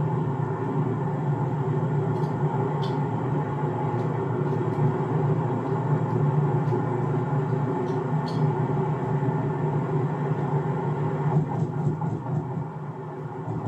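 Car driving through city traffic: a steady low rumble of engine and road noise, with a few faint ticks.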